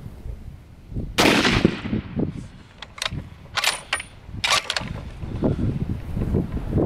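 A single rifle shot from a muzzle-braked Savage Axis 2 Precision bolt-action in .270 Winchester about a second in, with a ringing tail. From about three seconds in comes a quick run of sharp metallic clicks and clacks as the bolt is worked to eject the case and chamber the next round.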